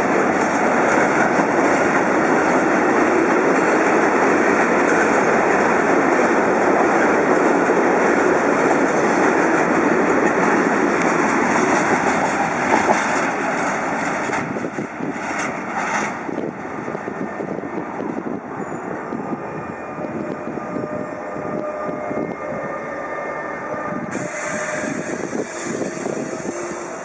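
Freight wagons of a mixed goods train rolling past close by: a steady rumble of wheels on rail that fades from about 13 seconds in as the train draws away. A few knocks come about 15 seconds in.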